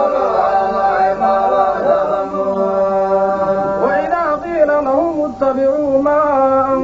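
A man's voice reciting the Quran in a slow melodic chant, drawing out long held notes. About four seconds in, a second man's voice takes up the recitation with a more wavering melody.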